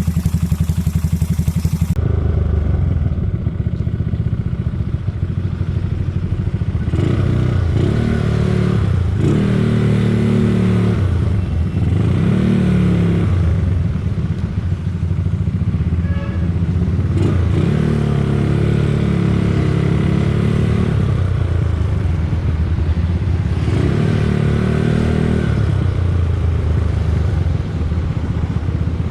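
Big-bore Yamaha Mio scooter's single-cylinder four-stroke engine running through a JVT V4 Teardrop aftermarket exhaust, revved up and back down about five times between stretches of lower running.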